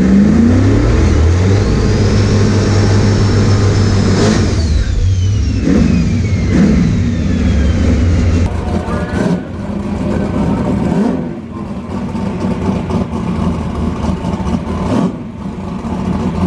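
Race car engine accelerating hard, with a high whine that climbs, holds, then falls away about four seconds in; the engine then runs on more quietly.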